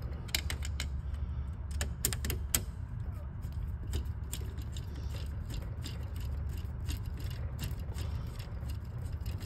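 Screwdriver turning the mounting bolts of a bolt-in three-phase breaker: irregular small metallic clicks and ticks as the tip works in the bolt heads, heaviest about two seconds in, over a steady low hum.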